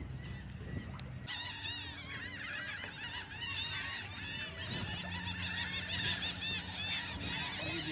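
A flock of birds calling together, a dense chatter of short high calls that starts about a second in, over a steady low hum.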